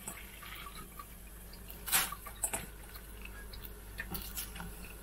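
Napa cabbage leaves being dropped by hand into a saucepan of broth, with a few short wet splashes and soft knocks, the loudest about two seconds in.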